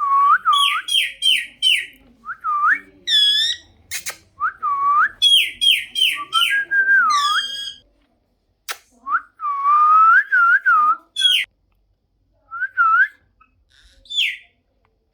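Parrot whistling a series of phrases, each a rising whistle followed by several quick falling notes, with two short pauses and a few sharp clicks between them.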